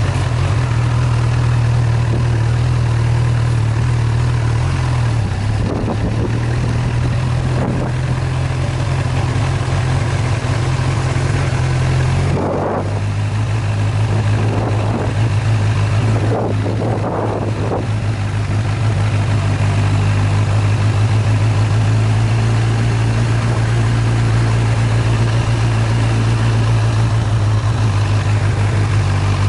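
A motor vehicle's engine running steadily while driving along a bumpy dirt track, its note shifting a couple of times, about five and twelve seconds in.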